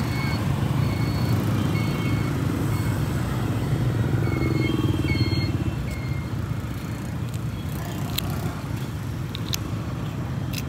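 Steady low rumble of road traffic, with a few faint short high chirps in the first half and a few soft clicks near the end.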